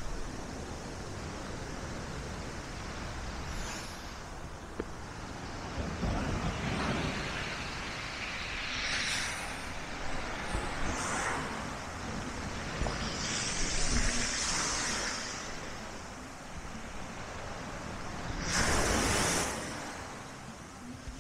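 Black Sea waves breaking and washing up the shore, swelling into a hiss every few seconds, with wind rumbling on the microphone.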